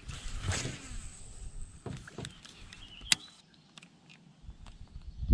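Handling noises while fishing from a small boat: a falling swish about half a second in, scattered clicks and one sharp tick a little after three seconds. Underneath is a low wind rumble on the microphone that drops away after about three seconds.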